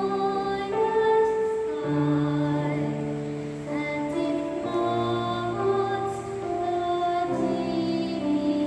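A woman singing a slow song solo over an accompaniment of long held chords, the notes changing every second or two.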